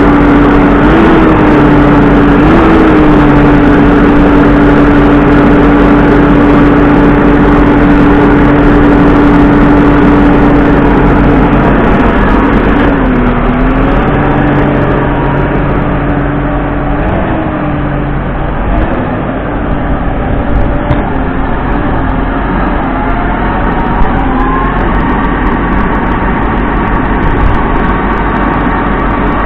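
An engine running at a steady pitch, its note dipping and rising a few times, with a higher note climbing near the end.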